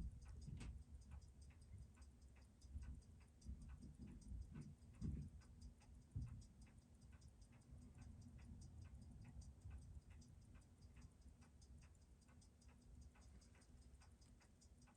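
Faint, fast, even ticking of a Seiko 6139 automatic chronograph movement while it is being timed in position after a service, with a few soft handling bumps about four to six seconds in.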